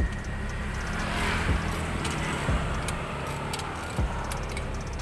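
Yamaha Aerox 155's single-cylinder engine idling steadily through an aftermarket F2Racing Hexagon long stainless-steel exhaust, with a few light clicks over the top.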